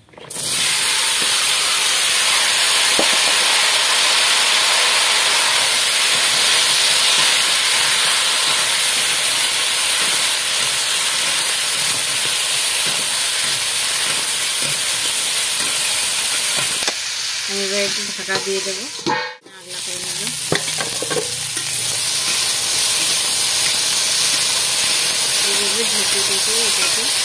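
Cut taro and potato pieces sizzling loudly in hot oil in a wok, stirred with a spatula. The sizzle starts suddenly as the pieces go into the oil and drops out briefly about two-thirds of the way through.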